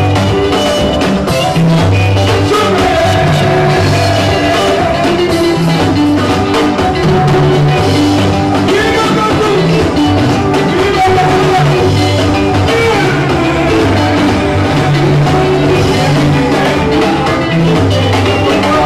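Live band playing upbeat dance music: electric guitars, bass, drum kit and conga drums, with singing.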